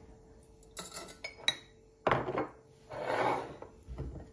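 Dishes and cookware being moved on a kitchen counter: a few light clinks about a second in, then a sudden clatter and a longer scrape.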